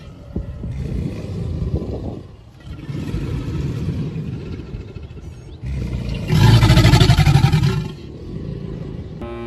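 American alligator bellowing: one long, deep, rough bellow about six seconds in, lasting about two seconds, with quieter rumbling before it.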